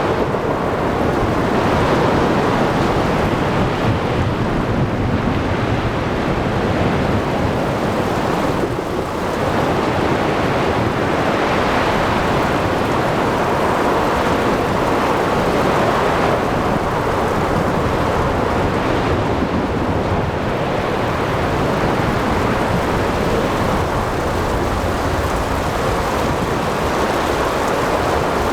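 Thunderstorm at sea: waves breaking, with wind, rain and thunder rumbling in a dense, steady mass of noise that swells and eases gently.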